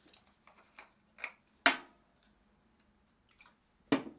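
Cosmetic bottles and cases being handled and set down on a dressing table: a series of light clicks and taps, with two sharper knocks about a second and a half in and near the end.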